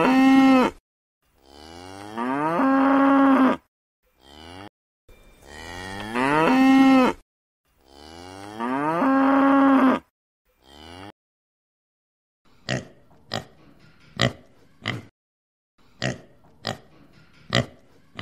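A cow mooing: long moos that rise and then hold a steady note, with short calls between them. After a pause about twelve seconds in, a pig gives about eight short grunts.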